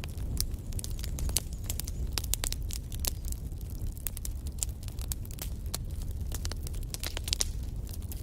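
Wood fire burning in a fireplace: logs crackling with many irregular sharp pops over a steady low rumble of flames.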